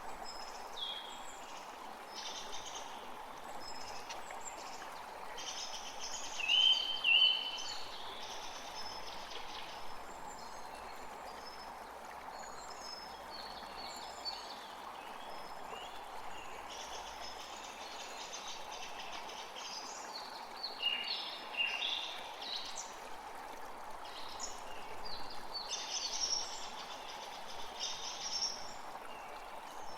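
A forest creek running steadily, with several birds singing and chirping over it. Two loud short notes come about seven seconds in, and a louder burst of song a little past the middle.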